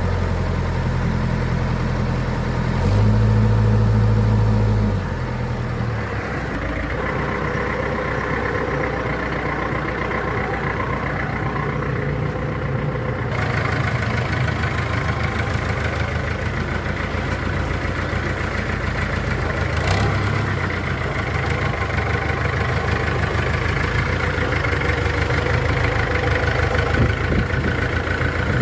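Engine running steadily at idle, with a louder stretch for about two seconds near the start.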